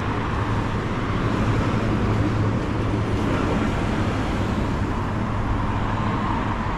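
Steady road traffic noise: an even rush of vehicles with a constant low hum underneath.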